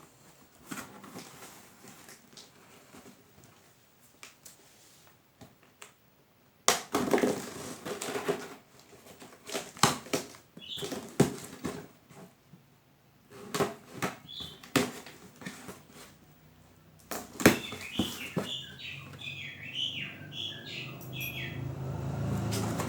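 Packaging of a box fan being handled and opened, rustling and crinkling in irregular bursts. Near the end there is a run of high, wavering squeaky chirps, and a low hum builds up.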